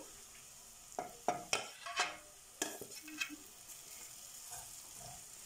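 Metal spoon stirring and scraping boiled potatoes into fried onion masala in a steel pot, with about half a dozen sharp clinks and scrapes in the first half. A faint steady sizzle from the frying pan runs underneath.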